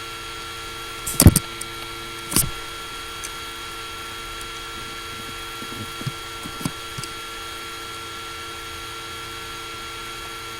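Laptop cooling fan running steadily with a whirring hum, picked up by the laptop's built-in microphone, with a few sharp clicks over it, the loudest about a second in and a second one shortly after, then two fainter ones later.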